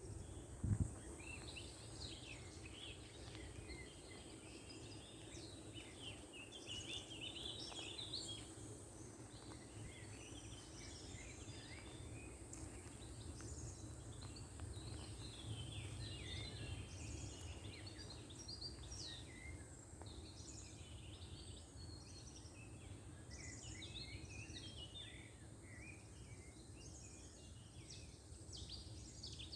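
Many small birds chirping and twittering over a steady low rumble, with a brief low thump about a second in.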